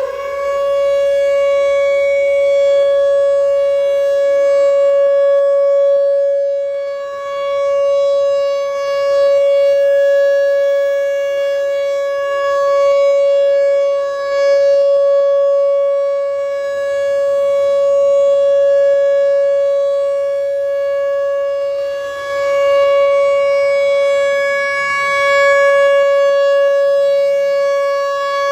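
Whelen WPS-4004 electronic outdoor warning siren sounding a steady alert tone, one held pitch with many overtones. It swells and fades about every 7 to 8 seconds as the rotating head sweeps past.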